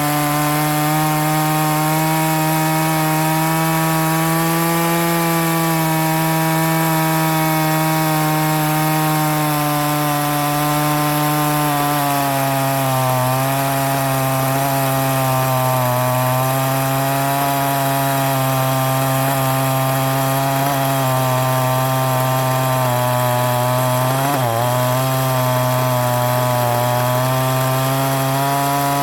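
Stihl 023 C two-stroke chainsaw running at high revs while cutting through wood. The engine note holds steady, sagging slightly as the chain loads up, with a brief dip in pitch near the end. The saw has a big-bore kit, and its owner says it has low compression.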